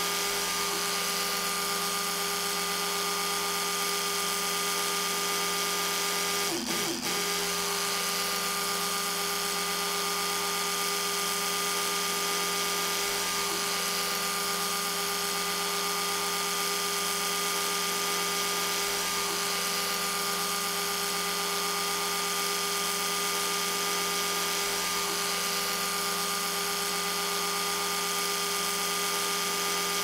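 Electric toothbrush buzzing steadily with a fixed hum, briefly wavering in pitch and level about six and a half seconds in.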